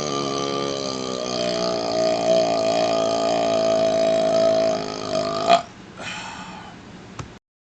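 A man's very long belch, brought up by chugging carbonated Pepsi, held at a steady pitch for several seconds and cutting off abruptly about five and a half seconds in. A brief, fainter sound and a click follow.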